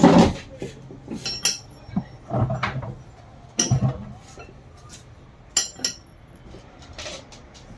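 Metal parts and hand tools clinking and knocking against each other in a string of short, irregular strikes during work on a Wilden diaphragm pump, the loudest right at the start.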